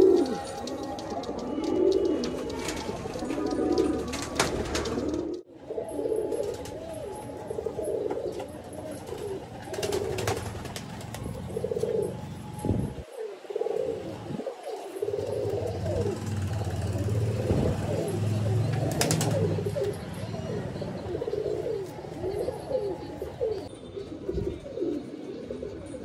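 Several highflyer pigeons cooing continuously, the coos overlapping one another, with a couple of brief sharp clicks.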